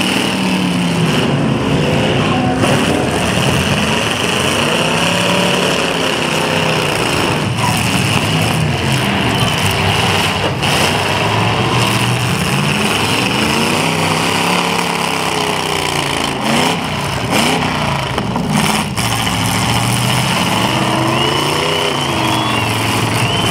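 Demolition derby cars' engines revving hard, several at once, their pitch sweeping up and falling back again and again over a constant loud din. A few sharp bangs of cars hitting each other cut through.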